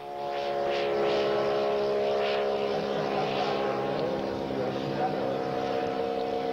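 A large-scale RC model airplane in flight: the Sopwith Tabloid's 200cc King engine and propeller droning at a steady pitch.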